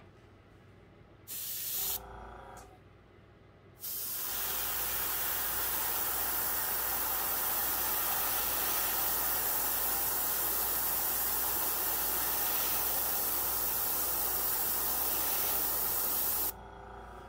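Gravity-feed airbrush spraying bright orange paint: a short burst about a second in, then a long steady hiss of air and paint from about four seconds in that cuts off sharply near the end.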